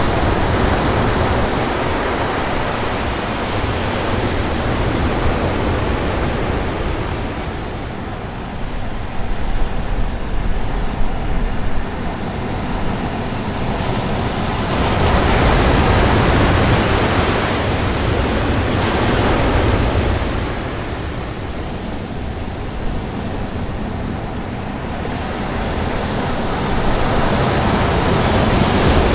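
Surf breaking on a sea beach with wind buffeting the microphone: a steady wash of noise that swells and eases as the waves come in, loudest about halfway through and again near the end.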